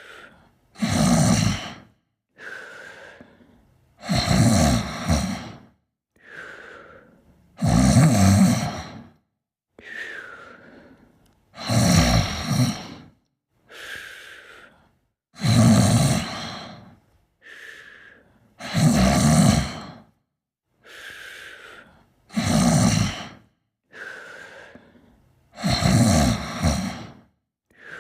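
A sleeper snoring in a steady rhythm: a loud, deep snore about every three and a half to four seconds, seven in all. Between them comes a softer breath that starts with a faint whistle.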